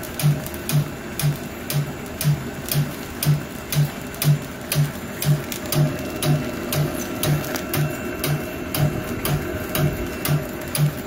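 Welly S-3 grain puffing extruder running on brown rice, with a regular low thump about twice a second and quicker sharp clicks from its working parts.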